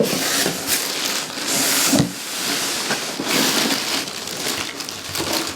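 Packaging being handled and pulled apart during an unboxing: irregular rustling and crackling of wrapping, with a single knock about two seconds in.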